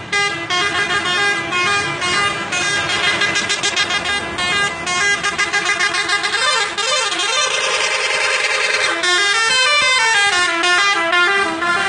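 A bus's 'telolet' multi-tone musical air horn playing a tune: a fast run of short, changing notes, then a held note and a sweep up and back down near the end.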